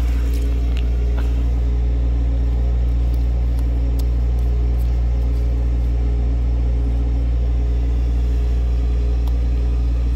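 A steady low machine hum at an even level, with a few faint ticks over it.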